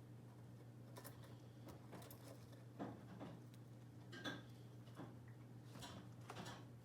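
Faint, scattered taps and clicks at uneven spacing, as of kittens' paws and claws moving about, over a steady low hum.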